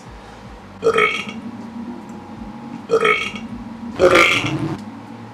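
A man burping three times, the last burp longer than the first two.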